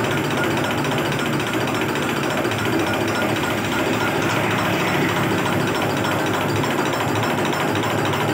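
Diesel injection pump test bench running a new fuel injection pump under test, a steady rapid mechanical rattle of the bench drive and the pump's injectors firing.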